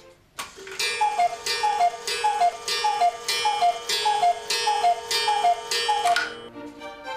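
Black Forest cuckoo clock with a one-day mechanical movement calling the hour: a string of falling two-note cuckoo calls, about one every 0.6 seconds. Each call comes with a sharp strike, and the calls stop about a second before the end.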